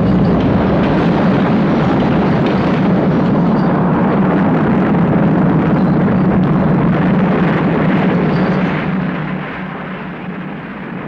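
Collapse sound effect: a loud, continuous rumble of falling rock and debris, dying away over the last couple of seconds.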